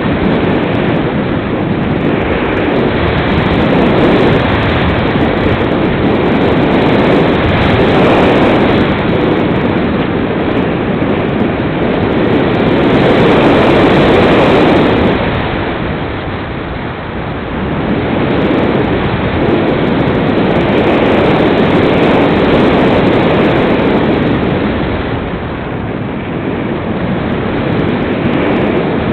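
Air rushing over the onboard camera of a Multiplex Cularis RC glider in flight: a loud, steady wind rush that swells and eases with the glider's speed, loudest about halfway through and dropping back twice.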